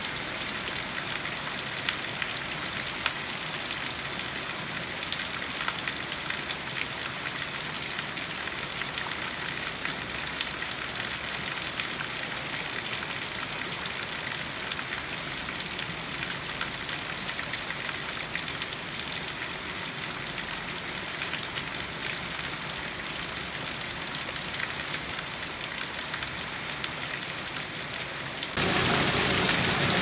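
Steady heavy rain falling on broad-leaved garden plants, a dense hiss speckled with individual drop hits. About a second and a half before the end it cuts suddenly to a louder, fuller downpour.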